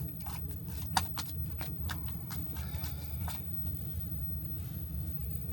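Irregular light clicks and rattles, about a dozen in the first three seconds, then they stop; a steady low hum runs underneath.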